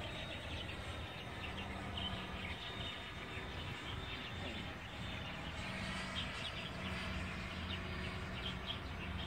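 Distant, steady whine of a Freewing F-15's twin 90 mm electric ducted fans in flight, faint under outdoor background noise and birds chirping.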